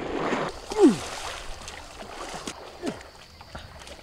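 Water splashing and sloshing around a stand-up paddleboard for the first half second. Then a voice cries out with a pitch that falls sharply, loudest about a second in, and a weaker falling cry comes near three seconds.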